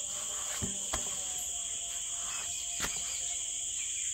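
Crickets chirring steadily in a continuous high trill. Two light clicks break in, about a second in and again two seconds later.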